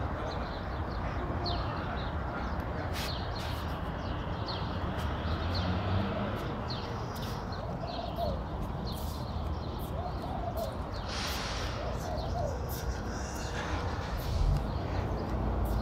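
Birds calling: many short, high chirps, and a lower call repeated every second or two, over a steady background rumble.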